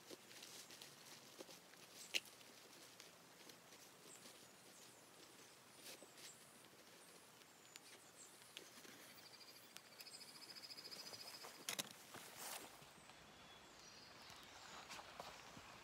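Near silence: faint outdoor ambience with scattered soft clicks and taps, one sharper click about two seconds in, and a brief high, rapid buzzy trill about ten seconds in.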